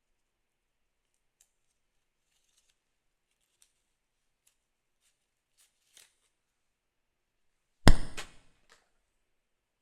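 Packaging of a MacBook charger being handled and opened: faint scattered clicks and crinkles, then one loud sharp knock about eight seconds in, followed by a few quick lighter knocks.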